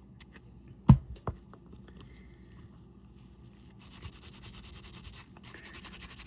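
A sharp knock about a second in, with a smaller one just after, then quick, rapid scrubbing strokes on a G-Shock's resin watch case as the gunk is cleaned off, pausing briefly and starting again near the end.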